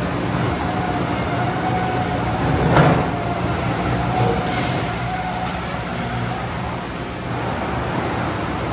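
CapSnap 5-gallon water bottling line running: a steady machine hum with a faint steady whine as the chain conveyor carries the big plastic bottles into the washer. One louder knock about three seconds in, and a short hiss soon after.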